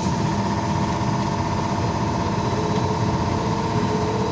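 BKM-321 trolleybus under way, heard from inside: the electric traction drive gives a steady whine over the low rumble of the road and body, and one tone rises slightly near the end.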